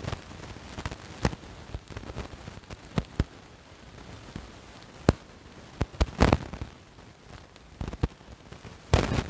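Small freshly lit campfire crackling, with sharp irregular pops about once a second and a louder cluster of pops about six seconds in. A short rush of noise comes near the end.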